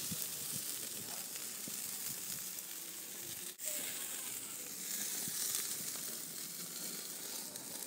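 Chicken and lamb skewers sizzling over glowing charcoal on a barbecue grill: a steady hiss with small crackles, which breaks off for an instant about three and a half seconds in.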